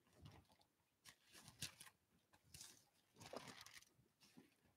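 Near silence, with a few faint rustles of thin Bible pages being turned, the clearest about a second and a half in and again past three seconds.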